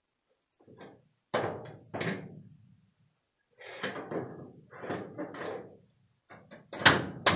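A series of knocks and thunks from objects being handled, ending with two sharp bangs close together near the end.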